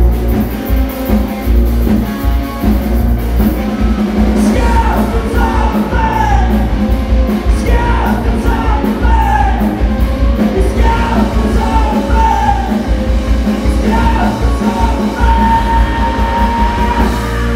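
Live rock band playing: electric guitars, bass and drum kit. A male singer comes in about four seconds in and holds one long note near the end.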